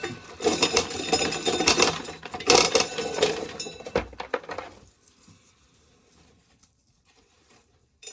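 Dry corn being shelled, the kernels rattling and pattering in a dense clatter that stops about five seconds in.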